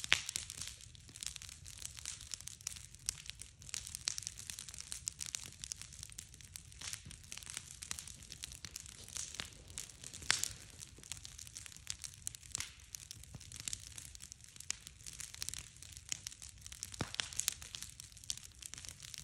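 Wood campfire of stacked branches crackling and popping: a dense run of sharp snaps over a steady hiss, with a few louder pops about ten seconds in and near the end.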